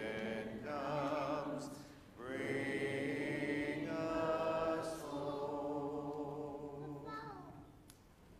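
Church congregation singing a hymn a cappella in parts, with a short breath pause about two seconds in, then a final phrase ending on a long held closing note that fades out near the end.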